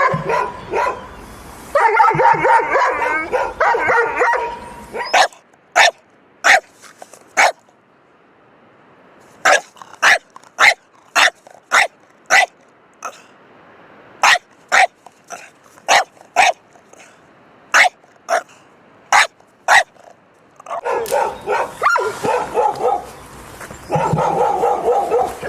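Dog barking repeatedly: dense runs of barks near the start and again near the end, and in between single short, sharp sounds, one or two a second.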